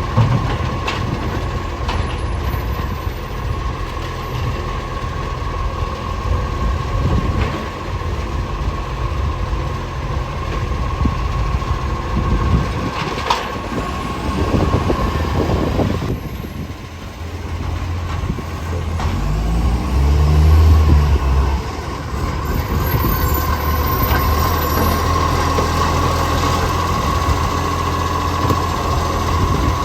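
Garbage truck's diesel engine running, with a steady whine over the rumble and a surge in engine note about two-thirds of the way through; the truck has an exhaust leak.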